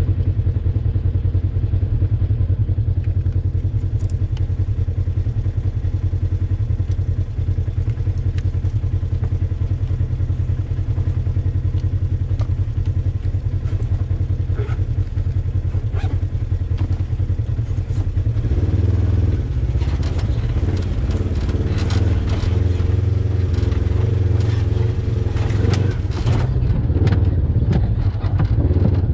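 Polaris RZR XP 1000 side-by-side's parallel-twin engine running steadily at low speed while rock crawling, with knocks, clatter and scraping over rock from about two-thirds of the way in.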